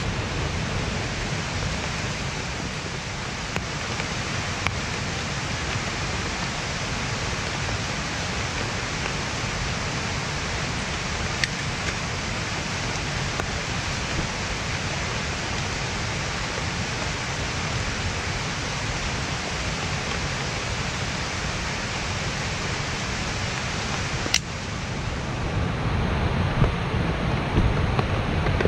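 Rushing water of a rain-swollen valley stream: a steady, even hiss. There is a sharp click about 24 seconds in, and a low rumble with a few knocks near the end.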